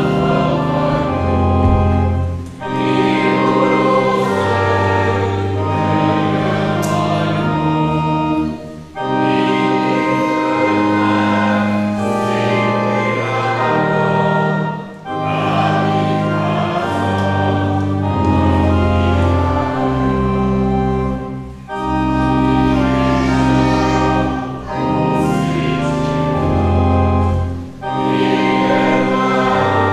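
Church congregation singing an Advent hymn with organ accompaniment, in long held phrases with short breaks between the lines.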